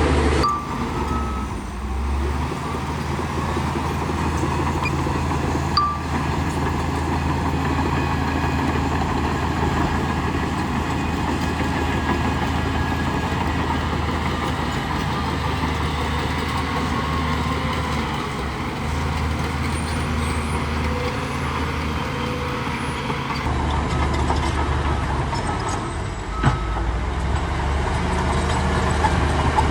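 Heavy diesel earthmoving machine, a bulldozer, running steadily under work, with a sharp knock about six seconds in and another near the end.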